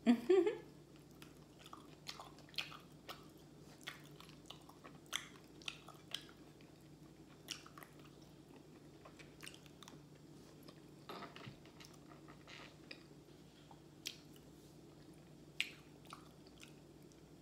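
A person chewing a fried chicken meal close to the microphone: irregular small wet clicks and crunches of eating, a few of them louder.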